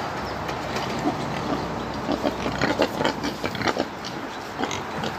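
Pigs grunting in a pen: a string of short, irregular grunts over a steady low background rumble, busiest in the middle seconds.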